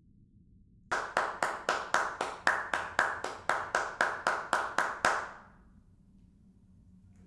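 One person clapping hands at a steady pace, about four claps a second, starting about a second in and stopping after about four seconds, with a short echo of the room after the last clap.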